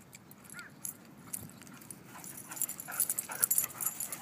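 Poodles playing close by: a short, high, rising whine about half a second in. From about two seconds on comes a louder, quick patter of short sounds as the dogs run up, with breathing and scuffling.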